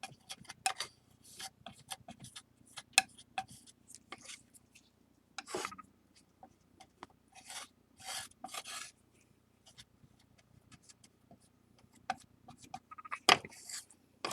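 Palette knife scraping and tapping on a tray while mixing flour and water into a stiff paste: irregular short scrapes and clicks, with longer strokes about five and eight seconds in and a louder cluster near the end.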